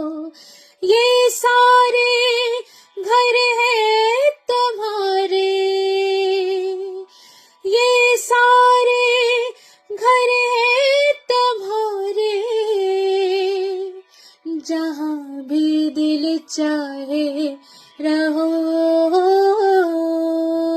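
A woman singing alone, with no instruments, in phrases of long held notes with vibrato and short breaths between them.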